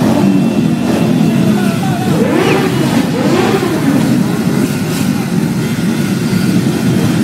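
A procession of many cruiser motorcycles riding slowly past in a continuous low engine rumble. Several engines rev up around the middle.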